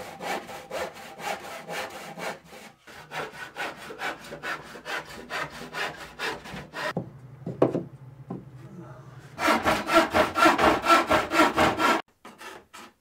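Handsaw cutting old plywood in quick back-and-forth strokes, about five a second. The sawing pauses briefly past the middle, then comes back louder for a couple of seconds and stops abruptly.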